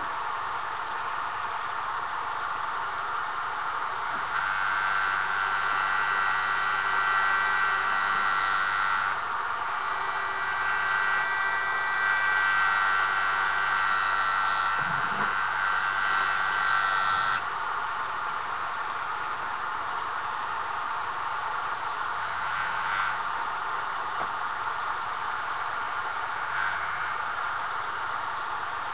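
Jool Tool rotary sharpening system running steadily, with steel pressed against its spinning abrasive disc in grinding passes: a long pass of about five seconds, a second of about eight seconds, then two brief touches near the end. Each pass adds a high hiss and whine over the steady running sound.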